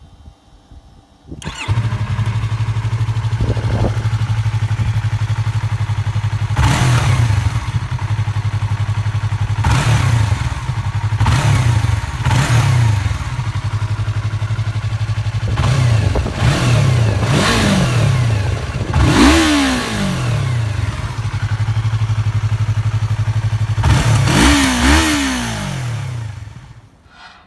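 Yamaha YZF-R3's parallel-twin engine starting about a second and a half in, idling, and given a series of short throttle blips, several of them in quick pairs, before it is switched off near the end.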